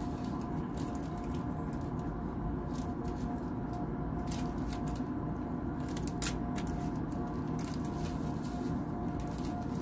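Scattered small crackles and clicks from a plastic packet of disposable gloves being handled and bitten open, over a steady background hum.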